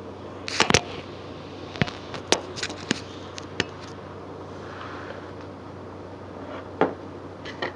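Knocks and sharp clicks of a plastic liquid starch bottle being handled and set down beside a plastic cup on a tabletop, with a cluster of knocks about half a second in and single clicks after. A steady low hum runs underneath.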